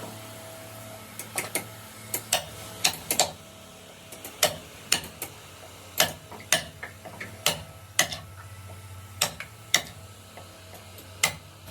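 Hand tools striking wood in sharp, irregular taps, often in close pairs, over a low steady hum.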